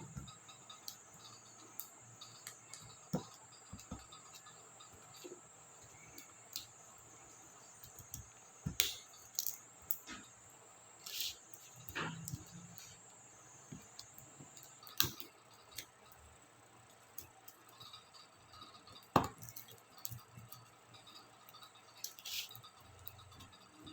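Laptop keyboard keycaps and their plastic clips being worked loose: scattered small sharp clicks and snaps at irregular intervals, the loudest about two-thirds of the way in, over a faint steady high-pitched whine.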